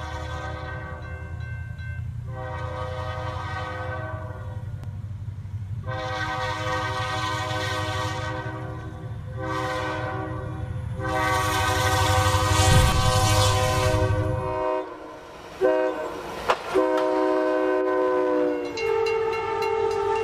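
Train's air horn sounding a series of long blasts with short gaps, over the low rumble of the moving train, which stops about three-quarters of the way through. Near the end the horn chord drops in pitch as the train goes by.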